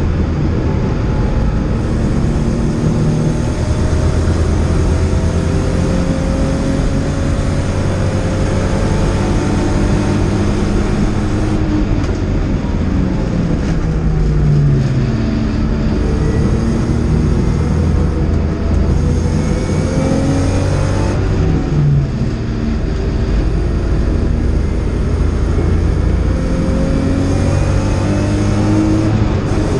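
BMW E30 325i's straight-six racing engine, heard from inside the cabin, pulling hard. Its pitch climbs through the gears and drops at each gear change, over steady road and wind noise.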